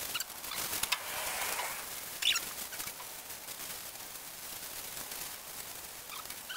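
Meat sizzling and popping on a stainless-steel barbecue hotplate, with many small crackles, and a plastic bag rustling about a second in.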